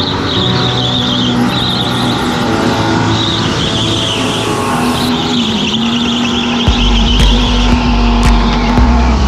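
Electric rental go-kart at racing speed, its tyres squealing in repeated bursts through the corners over a steady motor whine. A heavy low rumble comes in about two-thirds of the way through.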